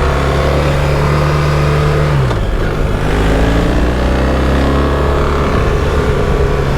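BMW R1300GS boxer-twin engine pulling hard. About two seconds in the revs drop sharply on an upshift, then climb steadily again.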